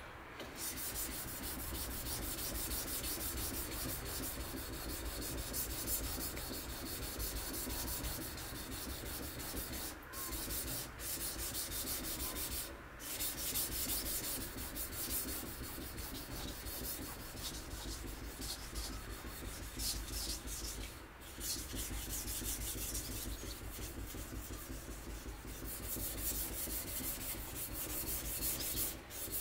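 Naoki Mazaki kurouchi gyuto steel blade rubbed back and forth on an 800-grit sharpening stone: a continuous gritty scraping with a few short pauses. The strokes are smoothing the shoulder of the hamaguri second bevel into a flat-to-convex edge and removing the 400-grit scratches.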